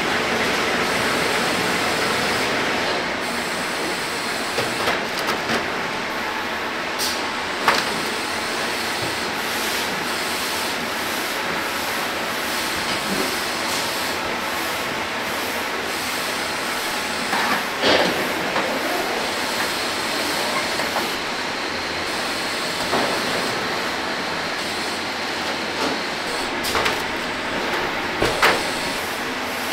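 Steady hiss and hum of factory machinery, with occasional sharp metallic clanks from steel snack trays and a large cabinet door being handled; the loudest clank, with a short ring, comes a little past halfway.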